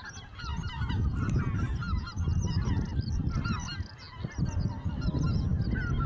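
A flock of greater white-fronted geese calling in flight: many short calls overlapping in a continuous chorus, over a low rumble.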